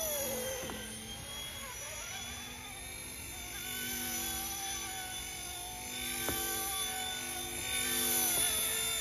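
Small RC ERA C189 MD500 scale RC helicopter flying, its electric motor and rotors making a steady whine of several tones that shifts in pitch as it manoeuvres, dipping briefly about half a second in.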